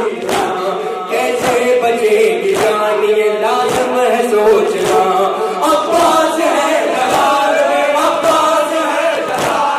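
Men chanting a noha, a Shia lament, over microphones: lead reciters sing and the group chants along. Steady rhythmic chest-beating (matam) slaps run underneath.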